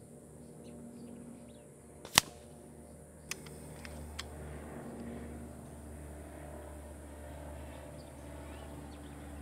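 A single shot from an FX Maverick .25 PCP air rifle, picked up by a microphone down-range at the 100-yard target: one sharp crack about two seconds in, then two faint clicks about a second apart, over a steady low outdoor background.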